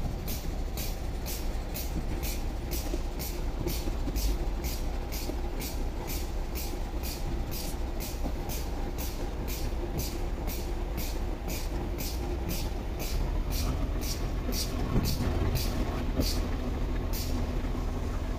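Air-powered grease gun pumping grease into a semi-trailer's landing-gear gearbox, each pump stroke a short sharp hiss, about two a second, over a steady low rumble.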